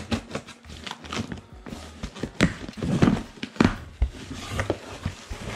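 A box cutter slitting the packing tape on a cardboard box, then the cardboard flaps pulled open, with irregular scrapes and knocks.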